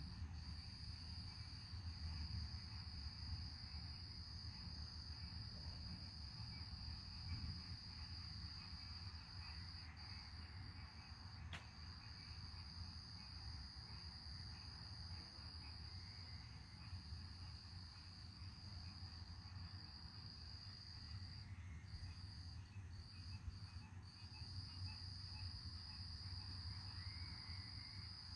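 Steady, high-pitched trilling of an outdoor insect chorus, with a few brief dropouts about three-quarters of the way through, over a faint low rumble.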